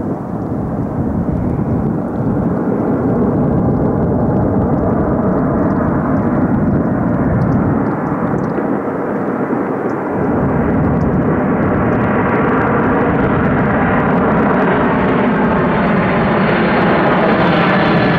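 Boeing 747-400 freighter's four jet engines on landing approach, a steady rumble that grows louder as the aircraft nears and passes almost overhead. A whine comes in over it in the last few seconds, with tones falling in pitch as it goes over.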